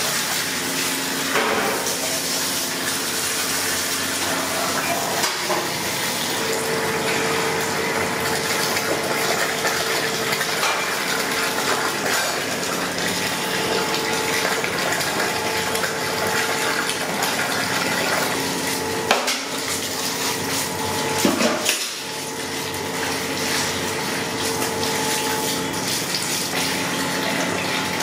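Water from a hose pouring steadily into a large aluminium pot of frozen fish pieces, filling it to thaw the fish, with a couple of knocks against the pot about two-thirds of the way through.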